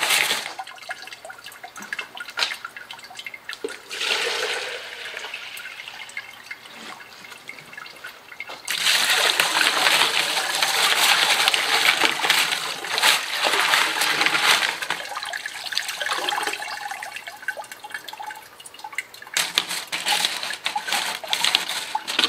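Water poured from a plastic jug splashing over tumbled rocks and ceramic tumbling media in a mesh sieve and draining into a bucket below, as the wet rocks are rinsed of grit slurry after a 120/220 silicon carbide stage. The pour comes in surges, the longest and loudest from about 9 to 15 seconds in, with light clicks of stones knocking together as they are rubbed by hand.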